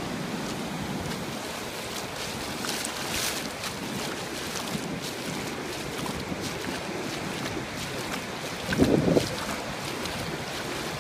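Ocean surf washing steadily on the beach, with wind blowing across the microphone. About three seconds in the hiss grows brighter, and about nine seconds in there is a brief, louder low thump.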